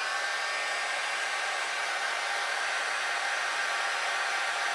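Handheld hair dryer blowing steadily, drying a freshly sponged coat of leather dye on a steering wheel.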